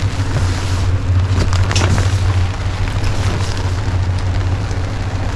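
Wind buffeting the microphone with a steady low rumble, rain falling, and a few brief rustles or knocks about a second and a half in.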